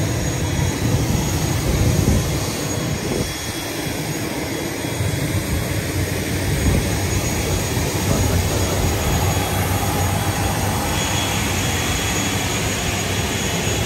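Airliner's engines running with a steady rumble and hiss after landing.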